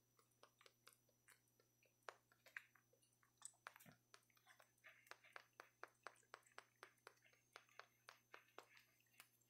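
Faint mouth clicks and smacks, several a second and irregular, from a macaque grooming another macaque's fur with its mouth and fingers. A soft bump about four seconds in.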